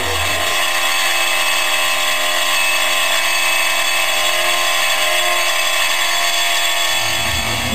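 Electric power tool running steadily without a break, a high whine that holds one pitch throughout.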